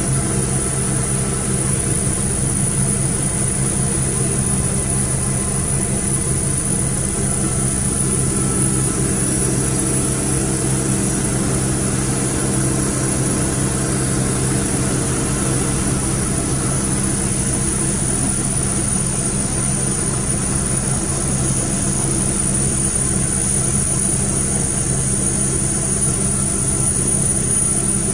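Westland Wasp helicopter's Rolls-Royce Nimbus turboshaft engine and rotors heard from inside the cockpit in flight: a steady low drone with a steady high whine above it.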